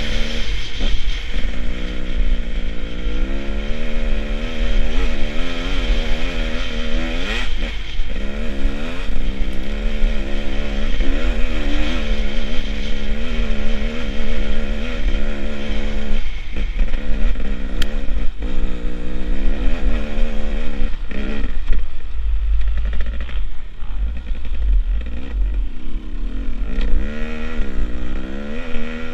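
Beta Xtrainer 300 two-stroke enduro motorcycle being ridden along a snowy trail, the engine note rising and falling again and again with the throttle and dropping away briefly a few times. Heavy wind rumble on the microphone underneath.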